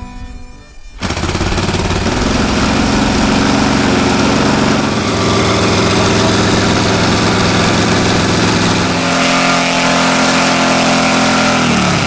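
The 120 cc Fiala FM120i2 engine of a large RC scale warbird runs on the ground. It comes in suddenly about a second in and holds steady speeds: higher for a few seconds, lower in the middle, up again, then its note falls away near the end as the throttle is pulled back.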